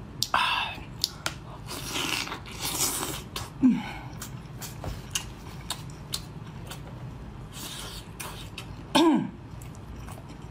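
Close-up mouth sounds of a woman eating chili-coated lobster meat: wet chewing and sharp mouth clicks, breathy puffs through pursed lips, and two short falling voice sounds.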